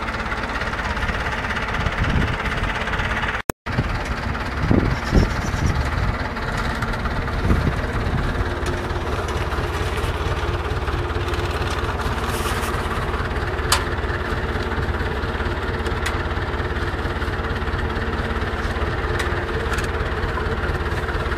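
Tractor engine running steadily as it pulls a three-row garlic planter, with a few low knocks and occasional sharp clicks from the working machinery. The sound cuts out for an instant about three and a half seconds in.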